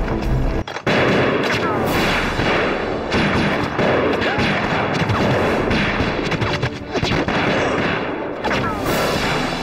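Staged battle sound effects: dense rifle and machine-gun fire in rapid overlapping shots, starting abruptly just under a second in after a brief drop.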